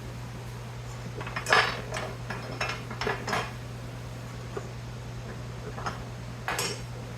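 Loose scrap metal pieces from a dismantled electrical panel clinking and clattering as they are handled. There is a cluster of clanks about a second and a half in and another brief clatter near the end.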